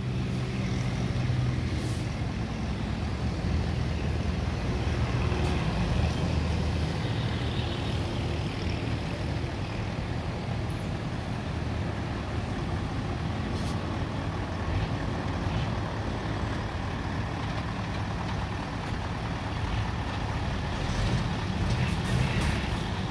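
Diesel engine of a Mercedes-Benz tractor unit running steadily at low revs as the truck manoeuvres slowly in reverse toward a trailer for coupling. A few brief sharp high sounds come and go over it.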